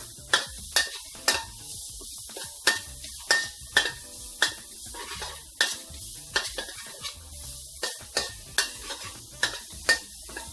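Sliced onion sizzling in hot oil in a wok, with a spatula scraping and clanking against the wok in irregular strokes, about one or two a second, as it is stirred.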